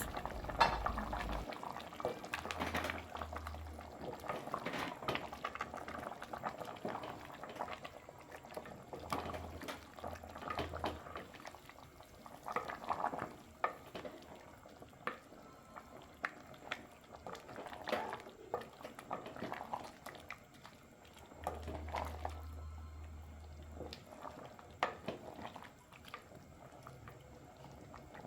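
Pot of chicken and potato stew bubbling on the boil, with irregular soft pops and crackles.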